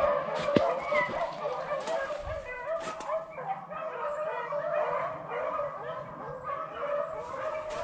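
A pack of beagles baying continuously, several voices overlapping, as the hounds run a rabbit's scent trail.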